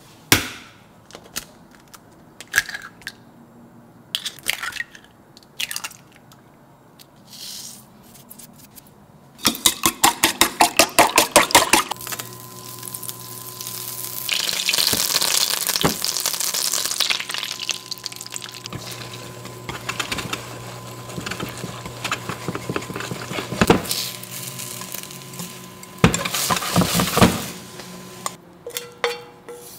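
Eggs beaten in a stainless steel bowl, a fast run of clinks. Then butter melts and sizzles in a black steel wok on an induction hob, with the hob's steady hum underneath. A louder burst of sizzling comes near the end.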